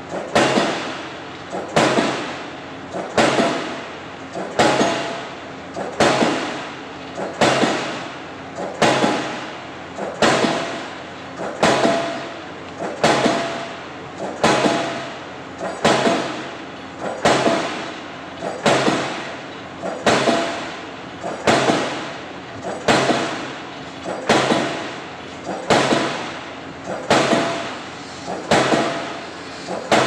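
Diesel pile hammer driving a spun concrete (PHC) pile, striking in a steady rhythm of about two blows every three seconds. Each blow is a sharp bang that dies away over about a second with a ringing note.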